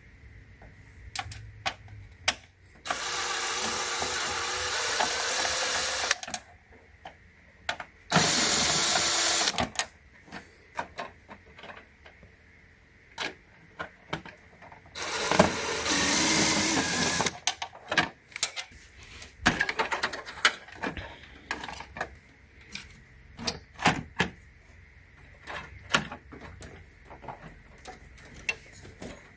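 Cordless electric screwdriver running in three bursts of a few seconds each, backing out screws, with many small clicks and taps of screws and metal parts between the runs.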